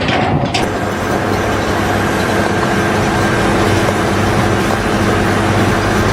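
A steady, loud mechanical drone with a low, even hum, like a large engine running at constant speed.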